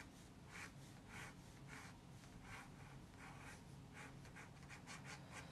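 Faint scratching of a pencil on paper: short sketching strokes, about two a second.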